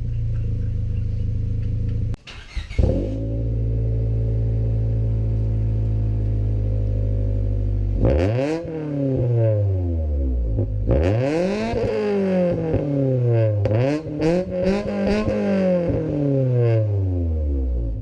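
2000 Honda Civic's four-cylinder engine running through a test pipe with the catalytic converter removed. It idles steadily, with a brief break and a sharp pop about two seconds in. From about eight seconds in it is revved several times, each rev rising and falling back toward idle.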